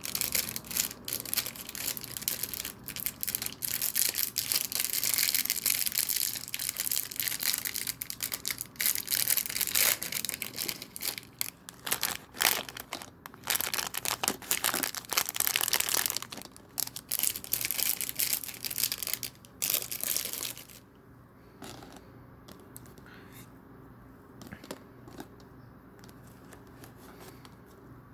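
Sealed plastic Lego parts packet being crinkled and torn open, a dense crackling with sharp rips for about twenty seconds, then dropping to a few faint clicks near the end.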